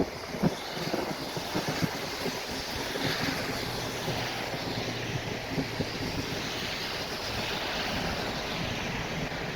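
Heavy rain pouring down in a thunderstorm, a steady rushing noise with wind buffeting the microphone.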